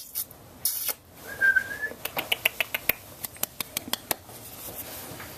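One short whistled note about a second in, held nearly level and lifting slightly at its end, followed by a run of quick faint clicks and taps, several a second.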